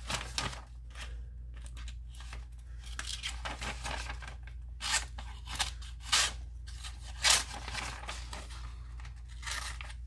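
The short blade of a Rough Ryder Tadpole pocket knife slicing into a sheet of notebook paper: a run of rasping, tearing cuts with several sharper strokes around the middle. The paper tears raggedly rather than parting cleanly, as the blade struggles to start the cut.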